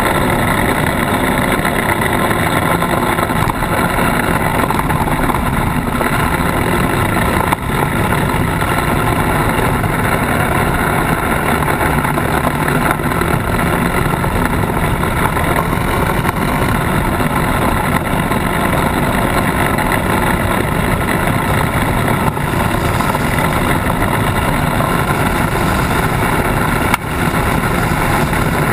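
Polaris RZR side-by-side driving steadily over a dirt and gravel track, heard from a camera on its bumper: engine running under way mixed with tyre and rolling noise. Two sharp knocks, one about seven and a half seconds in and one near the end.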